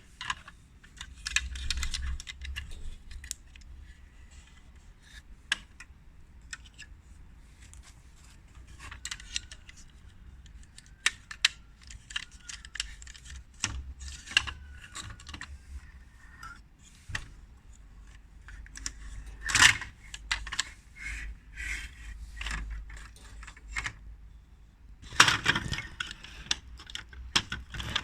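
Small plastic toy parts clicking, rattling and knocking together as they are handled and fitted in toy vehicle assembly, in irregular bursts. The loudest knock comes about two-thirds of the way in, with a longer rattle near the end.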